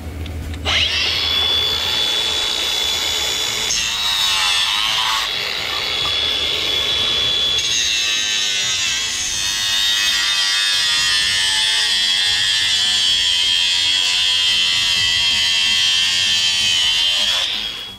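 Angle grinder running and cutting: a steady high whine over a dense grinding hiss. It starts just under a second in, wavers in pitch for a moment about four seconds in, and stops just before the end.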